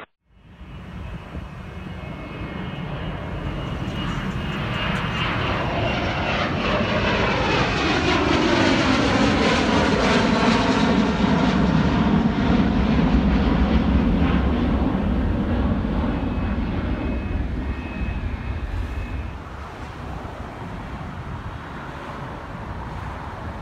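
Twin-engine jet airliner climbing out just after takeoff and passing overhead. The engine roar swells to a peak about halfway through, with a whine that falls in pitch as it goes by, then eases off.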